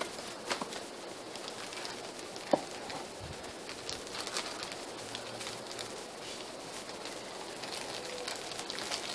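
Light crackling and rustling as a bag of brown sugar is handled and measured out, with a single sharp click about two and a half seconds in. A faint low bird call sounds near the end over quiet woodland ambience.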